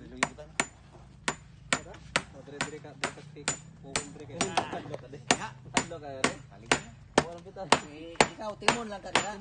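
Hammer blows on a wooden frame under construction, a steady run of sharp strikes about two a second, each with a short metallic ring. Voices talk over the later blows.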